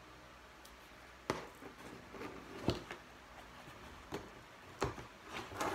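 Handling noise at a tabletop: after a quiet second, about five short knocks and taps with light rustling between, as objects are set down and lifted out of a foam-lined box. The last knock is the loudest.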